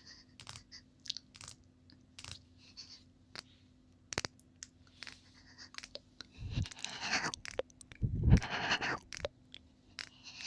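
ASMR ear-licking mouth sounds close on the microphone: small wet tongue and lip clicks scattered throughout, then two louder, longer wet licking passages after about six and eight seconds.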